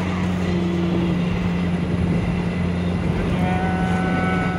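Steady engine drone and road noise inside a vehicle driving alongside a moving passenger train. About three and a half seconds in, a long multi-tone horn sounds.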